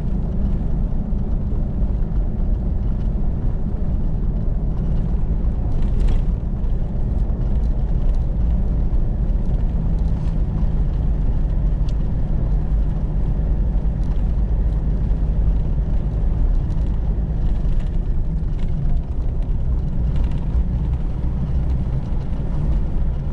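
Four-wheel-drive vehicle driving on a brick-paved road, heard from inside the cabin: a steady low rumble of engine and tyre noise with a few faint ticks and rattles.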